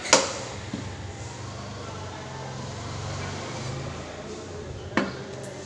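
Two chops of a butcher's cleaver through beef into a wooden log chopping block, one just after the start and one about five seconds in. Between them a low steady hum sounds in the background.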